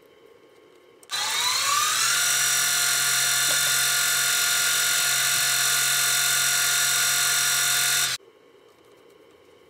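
Small metal-turning lathe running with a brass part in the chuck: its motor whine rises in pitch for about a second as it comes up to speed, holds steady, then cuts off suddenly about eight seconds in.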